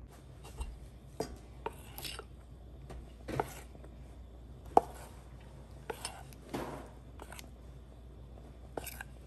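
A metal spoon working thick gram-flour batter in a stainless steel bowl: irregular clinks and taps of the spoon against the bowl with soft scraping between them, the sharpest knock about five seconds in.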